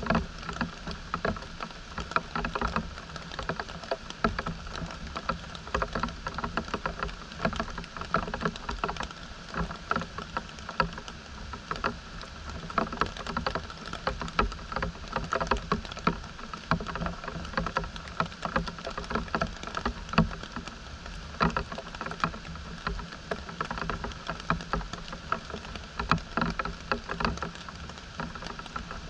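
Water splashing and dripping: a dense, irregular patter of small splashes over a steady watery rush.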